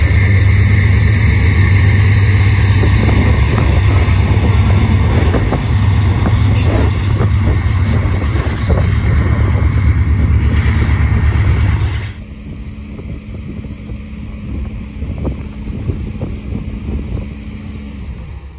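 Several Union Pacific diesel-electric locomotives passing close by: a loud, deep engine drone with rapid clattering. About twelve seconds in it cuts abruptly to a much quieter, steady hum.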